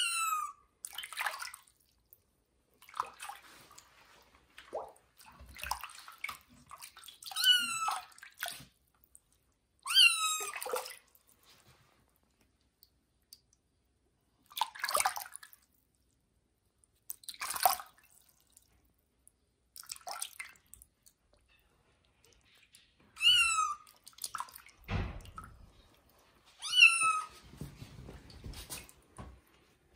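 Kitten meowing in short, high, loud cries that drop in pitch, repeated every few seconds, with bathwater sloshing in a washbasin. Near the end there is a low rumble of handling as the kitten is lifted into a towel.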